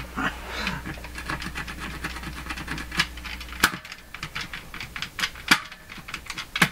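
Fisher System 8700 receiver's front-panel switches being worked, with scattered clicks and crackles and a few loud pops through the speakers, the noise of dirty switch contacts. A low hum cuts off suddenly with a sharp click a little past halfway.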